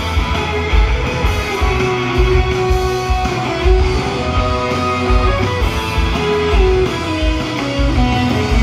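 Live indie rock band playing, electric guitars over drums, recorded from the audience.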